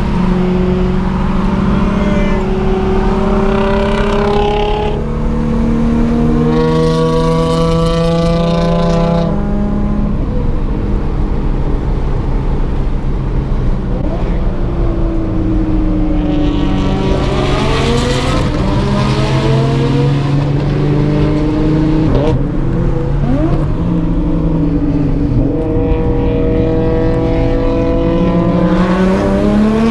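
Nissan 350Z's V6 engine under hard acceleration, its revs climbing over several seconds, dropping at shifts and climbing again, several times.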